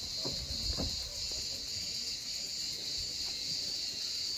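Cicadas droning steadily in a continuous high-pitched chorus, with a couple of soft low thumps near the start.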